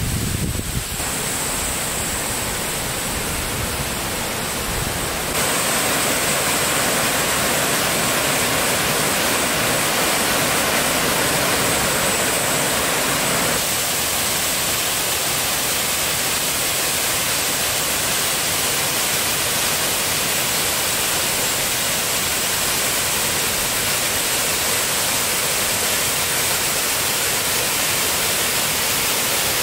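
Steady rush of water, with no tone or rhythm in it. Its level and colour shift suddenly about five seconds in and again near the middle.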